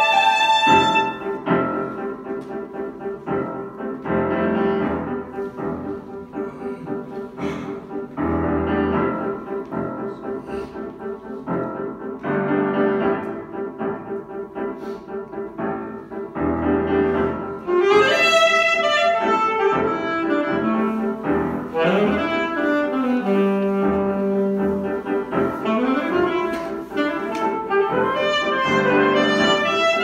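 Alto saxophone and grand piano playing a contemporary classical duet. For the first half a quick repeated note pulses under low bass notes. From about the middle on, the saxophone plays fast runs that slide up and down, with a long held low note.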